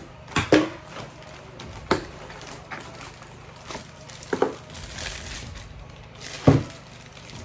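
Unpacking noises: a handful of sharp knocks and clacks from products and shopping bags being handled, the loudest knock near the end, with light crinkling between.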